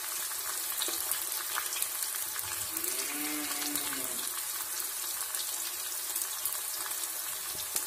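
Chopped onions and green chillies sizzling in hot mustard oil in a kadhai: a steady hiss with many small crackling pops.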